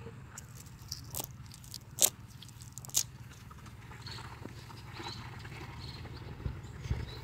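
Cast net being handled on dry ground while small fish are picked out of it: light rustling and crackling, with a few sharp clicks in the first three seconds, over a steady low rumble.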